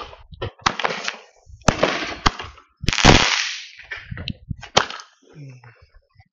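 Fireworks shooting coloured stars into the air: about six sharp pops a second or so apart, each followed by a short hiss.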